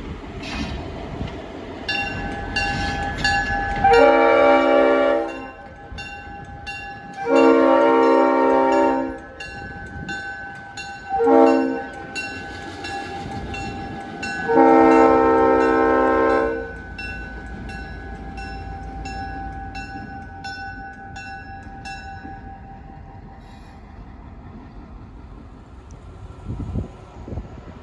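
Aberdeen & Rockfish GP38 locomotive's Leslie RS5T air horn sounding the grade-crossing signal: long, long, short, long. A bell rings steadily under the horn and fades out as the locomotive's diesel rumbles past.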